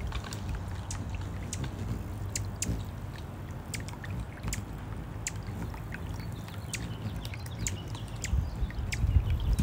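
Small electric-pump fountain bubbling up in a shallow planter-saucer birdbath, a steady trickle and gurgle of water, with scattered sharp drips and splashes as a hummingbird bathes in it.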